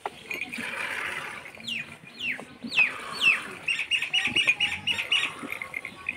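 Hand-milking: streams of milk squirting into a plastic bucket. Birds call over it, with several chirps that fall in pitch and then a quick run of short repeated chirps.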